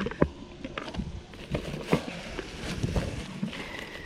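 Rummaging through a box of discarded household items: irregular clicks, knocks and light clatter of hard objects being moved and bumped together.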